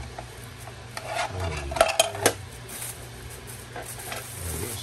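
Hard plastic parts of a small push-lid bin clicking and knocking as they are handled, with three sharp clicks close together about two seconds in. Plastic wrapping crinkles and rustles around them.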